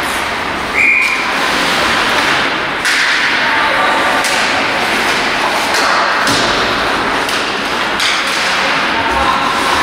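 Ice hockey play in an indoor rink: a string of sharp clacks from sticks and puck over a steady hall hiss, with players and coaches shouting. A brief high note sounds about a second in.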